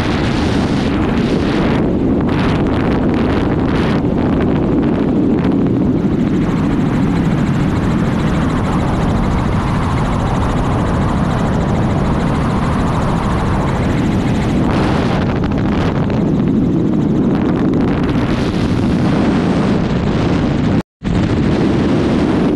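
Helicopter in flight, its rotor and engine noise steady and loud. The sound drops out for a moment near the end.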